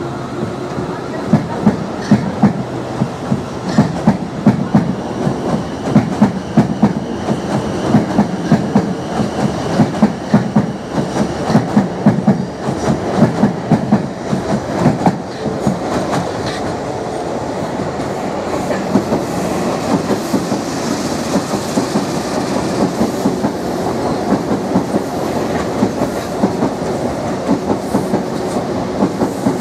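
Electric multiple unit passing close below, its wheels clattering over rail joints and pointwork in a quick, regular rhythm for the first half. The clatter then eases into a steadier rumble as the train pulls away.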